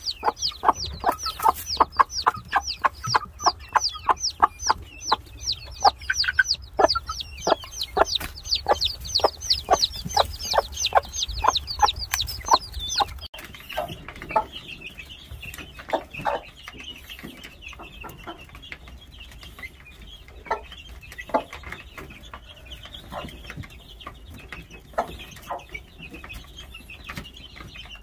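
Chickens calling: a rapid series of high, falling peeps, about three a second, over a low rumble. About halfway through the sound changes abruptly to fainter, steadier high calls with scattered taps.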